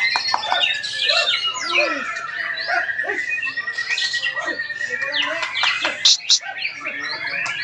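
Several white-rumped shamas singing at once in a dense chorus of whistles and chattering calls, with one long steady high note held through the middle. Two sharp, loud sounds stand out about six seconds in.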